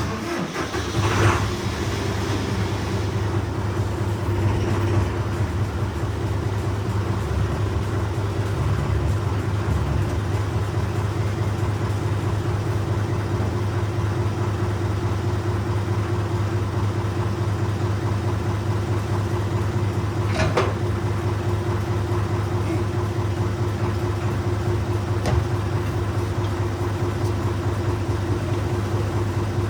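Tractor engine running at a steady speed, with a few short knocks over it, one near the start and two more later on.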